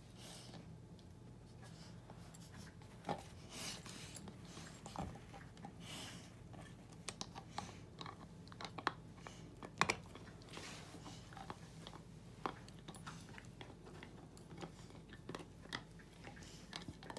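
Rottweiler puppy gnawing on a red deer antler: irregular scraping and crunching of teeth on the hard antler, with sharp clicks now and then, the loudest about ten seconds in.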